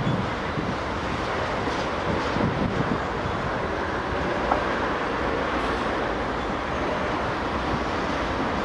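Freight train of ethanol tank cars rolling past: a steady run of steel wheels on rail, with one short click about four and a half seconds in.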